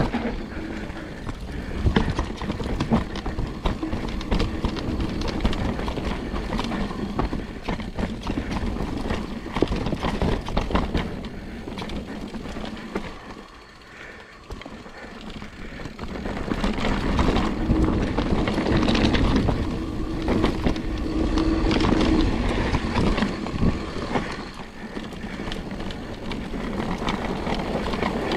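Mountain bike riding down a dirt bike-park trail: tyres rolling and the bike rattling and knocking over bumps, with a steady hum now and then, and a quieter stretch about halfway through.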